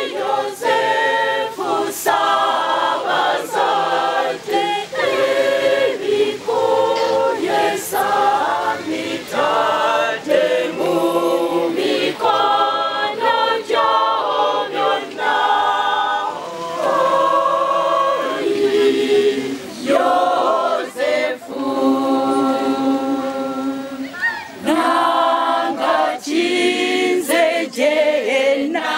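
Mixed church choir of men's and women's voices singing a hymn in parts, unaccompanied.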